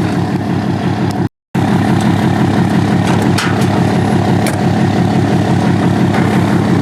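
Truck engine running steadily with an even low pulse, cut briefly to silence about a second in.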